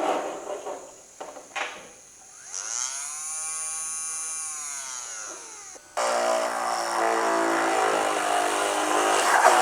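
Small handheld mini electric drill. A few clicks come first, then its motor whines, rising and then falling in pitch. From about six seconds in it runs louder and rougher.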